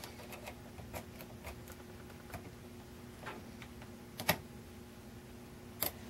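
Faint, irregular small clicks of a steel hook pick lifting and setting the pins of a six-pin Schlosser Technik brass euro cylinder under tension, with a sharper click about four seconds in and another near the end. A faint steady hum runs underneath.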